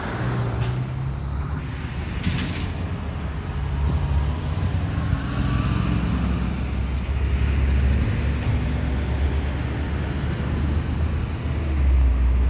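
Road traffic passing a level crossing, with a loaded log truck's engine among it. Then the diesel locomotives TR01 and TR03 run light toward the listener, their low engine rumble growing louder near the end.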